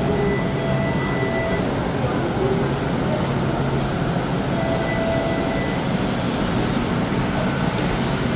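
TTC Flexity streetcar at an underground station platform: a steady, loud rumble and hum with faint whining tones that come and go.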